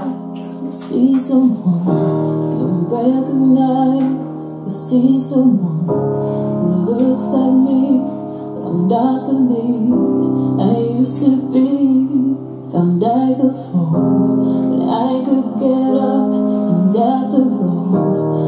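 A pop song with a woman singing over keyboard and piano backing, played loud through a mini hi-fi stereo's speakers; the backing changes chord about every four seconds.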